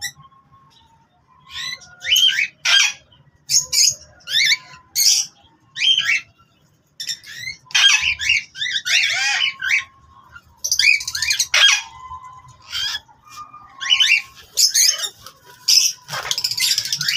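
Parrots squawking and screeching in a series of short, sharp calls, with longer harsh bursts about eight seconds in and again near the end.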